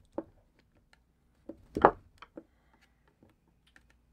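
Small screwdriver prying at the lens cover of a solar motion-sensor light head: scattered light clicks, with a cluster of sharper clicks about two seconds in.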